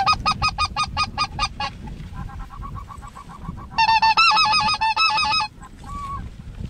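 Goose calling: fast runs of sharp, high yelping notes, about six a second. A loud run at the start, a softer run, then another loud run of bending notes about four seconds in that stops suddenly, with a low rumble of wind on the microphone underneath.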